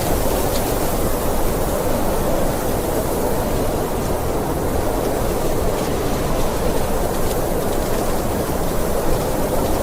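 Snowstorm wind blowing as a steady, deep, even rush with most of its weight low down and no distinct gusts.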